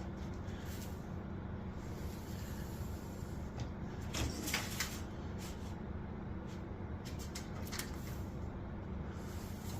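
Sheet metal being handled: a few light clicks and a brief scraping rattle about four and a half seconds in, over a steady low hum.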